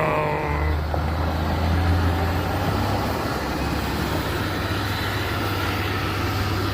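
Log truck's diesel engine pulling hard under load, a heavy steady low drone that sets in about half a second in, after a higher whine fades out.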